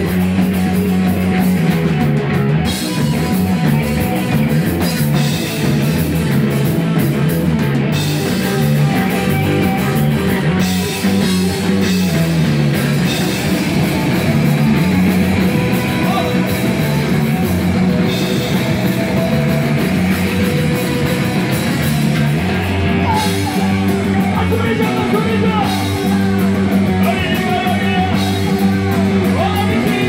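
Live punk/heavy metal band playing loud and without a break: electric guitars, bass guitar and drum kit, with singing over the top.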